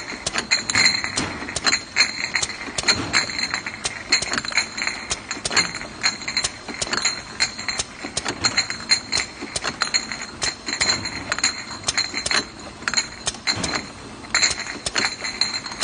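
Automatic linear labeling machine running, with amber glass bottles clinking and knocking against each other and the conveyor guides in a dense, irregular clatter. A thin, steady high-pitched whine runs under it.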